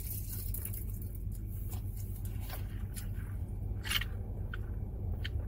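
Chewing and small mouth clicks from eating a chicken sandwich, with a short sip through a straw about four seconds in, over a steady low hum in a car's cabin.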